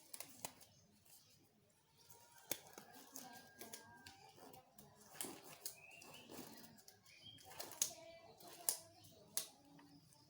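Faint, scattered clicks and taps of small objects being handled, with a few sharper knocks among them.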